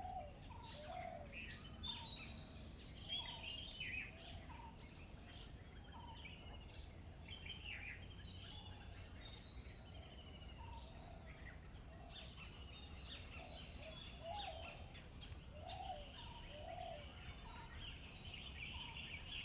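Several birds singing and calling: high chirps and trills throughout, with a lower call repeated about once a second.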